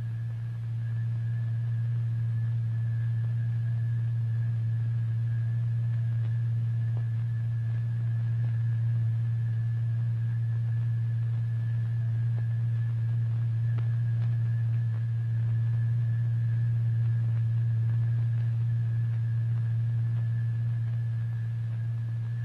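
A steady low pure tone held at one pitch: the note that drives the vibrating membrane in a cymatics experiment, setting the masses on it pulsating.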